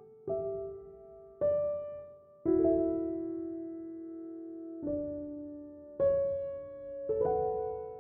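Background music: slow, gentle piano, notes and chords struck every second or two and left to fade.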